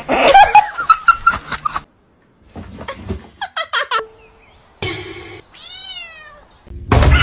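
A domestic cat meows once, a drawn-out call that rises and then falls in pitch, about two-thirds of the way through. It follows a burst of mixed noise in the first two seconds.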